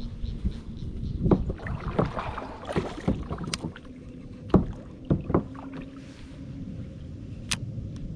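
Scattered sharp knocks and clicks of an angler handling his gear and catch close to a chest-mounted microphone, over a low rumble of wind and movement.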